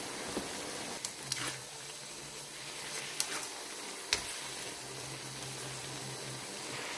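Noodles sizzling steadily in a hot wok as a spatula stirs and tosses them, with a few sharp clicks of the spatula against the pan about a second in, at about three seconds and just after four seconds.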